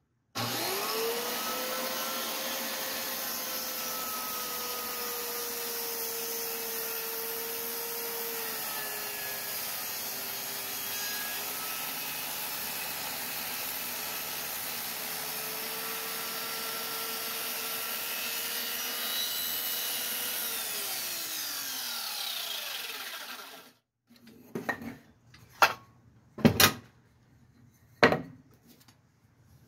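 A corded circular saw starts up, spinning up quickly, and rips lengthwise through a 2x4 for about twenty seconds. It then winds down and stops. A few sharp wooden knocks follow as the cut piece is handled.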